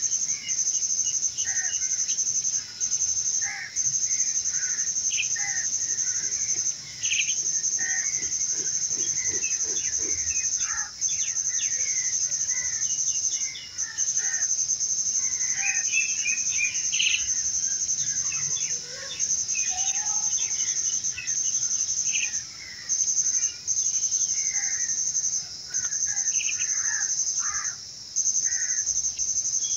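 Birds chirping over a steady, high-pitched insect drone, possibly crickets or cicadas, which breaks off briefly every second or two.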